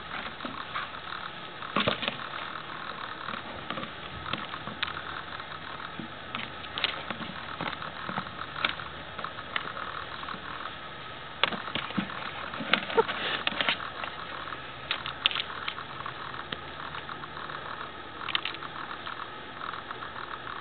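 Steady hiss with irregular sharp clicks and knocks: the clicking of an old, worn camera's own mechanism, mixed with a hollow plastic flower pot being knocked and shoved about on grass by a playing dog.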